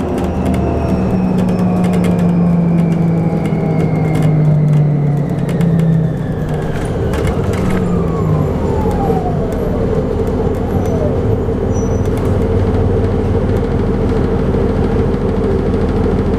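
Hybrid city bus's electric drive whining and falling steadily in pitch as the bus slows, with a few rattling clicks, then settling to a steady hum once it has stopped.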